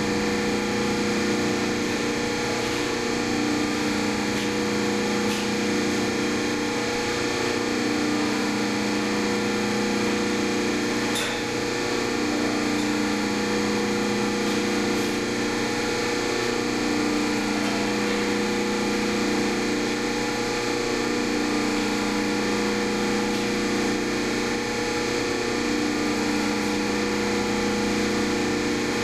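Hydraulic pump and electric motor of a 'Bend 2000' exhaust pipe bender running steadily, a constant low hum, with one faint click about eleven seconds in.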